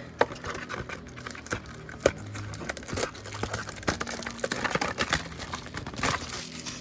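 Trading card packaging being unwrapped by hand: plastic and foil crinkling and tearing, with many irregular small crackles and snaps.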